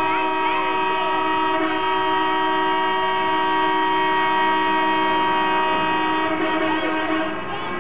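Truck air horns held down together, sounding one long steady multi-tone chord; the lowest tones cut out about seven seconds in.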